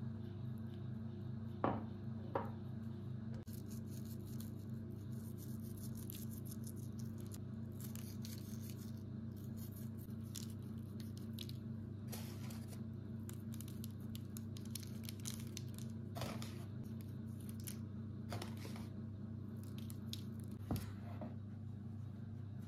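A silicone pastry brush dabs egg yolk onto rolled yufka pastries. Then seeds are sprinkled over them, landing in light scattered ticks and rustles on the pastry and baking parchment, with a few sharper taps and a steady low hum underneath.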